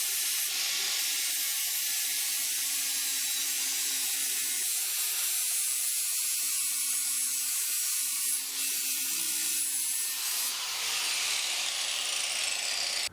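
Electric grinder abrading steel tubing, a steady hissing grind, cleaning the metal back to bare steel for welding. The sound shifts abruptly a few times.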